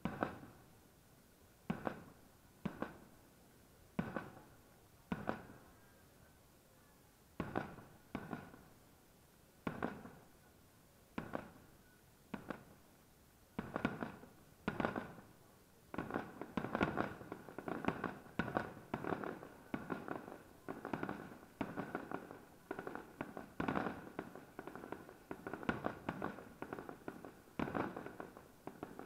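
Aerial firework shells bursting overhead, each bang trailing off briefly. Single bursts come about a second or two apart at first, then from about halfway they crowd into a rapid, overlapping run.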